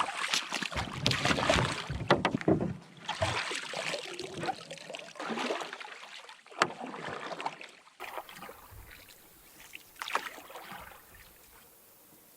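Canoe being paddled: irregular paddle strokes swishing and splashing in the water, with one sharp knock partway through, then quieter, sparser strokes that fade out near the end.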